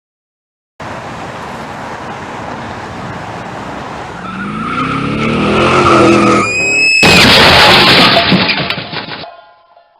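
Car crash sound effect: a car's noise builds into a screech of skidding tyres, then a sudden loud crash about seven seconds in that goes on for about two seconds before cutting off.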